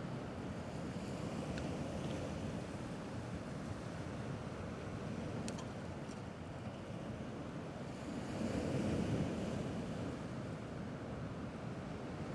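Small sea waves washing against a rocky shore, a steady wash with one wave swelling louder about eight seconds in.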